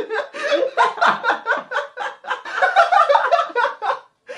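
A man laughing loudly in quick, repeated bursts.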